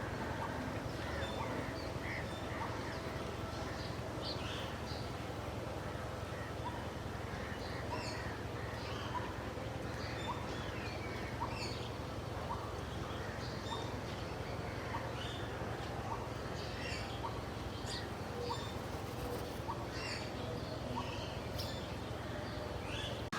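Several birds chirping in short, scattered notes over a steady low background rumble.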